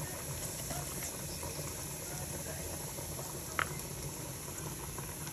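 Steady sizzling of food cooking on the stove, with one short click about three and a half seconds in.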